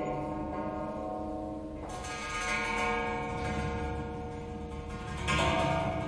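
Metal handrail struck and ringing, several clear tones overlapping and hanging on. It is hit again about two seconds in and once more near the end, each strike bright at first.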